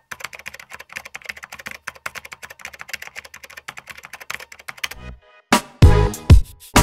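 Rapid computer-keyboard typing clicks, a sound effect for caption text typing itself out, stopping about five seconds in. After a short pause, music comes in with heavy beats.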